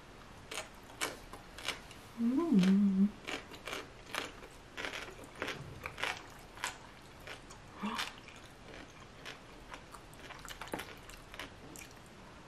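Close-up chewing and mouth sounds of someone eating rosé tteokbokki (chewy rice cakes and glass noodles in a creamy sauce), with many small wet clicks and smacks. About two seconds in there is a short hummed vocal sound that rises and then falls, which is the loudest moment.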